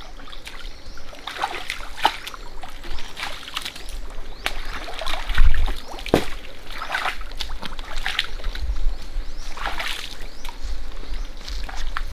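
Irregular splashing and sloshing of shallow muddy water as people wade through a drained pond, with a low rumble underneath that peaks about five seconds in.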